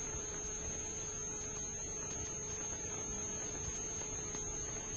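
Steady hum and hiss from the soundtrack of a 1945 film, with a thin high whine above it and no other sound.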